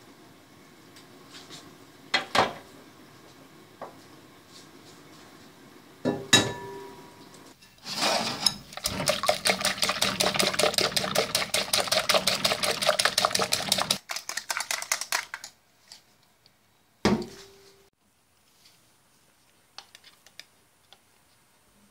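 Eggs being beaten fast in a glass bowl: a rapid, even clatter of utensil strokes against the glass for about six seconds, trailing off. A few separate knocks of the bowl and utensils come before and after, some with a brief ring.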